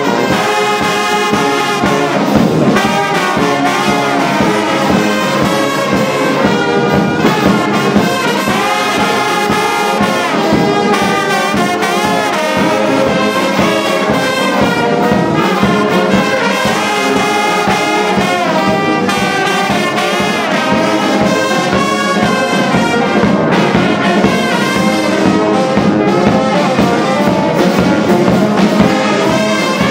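A brass band of trombones and trumpets, with tubas underneath, plays a tune together in harmony, without a break.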